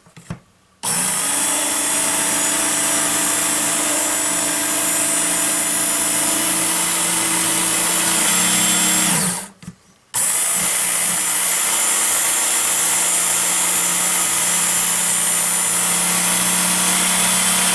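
Work Sharp electric belt knife sharpener running in two spells. The motor starts about a second in and runs steadily for about eight seconds, then winds down with a falling whine. After about a second's pause it starts again and runs steadily on.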